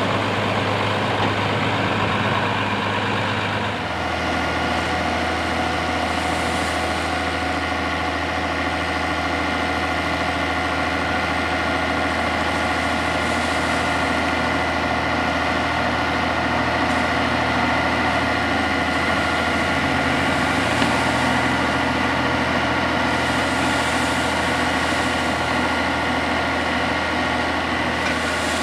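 IH Farmall 806 tractor engine running steadily while the wagon box behind it is raised to dump a load of corn silage. The engine note changes once about four seconds in, then holds steady.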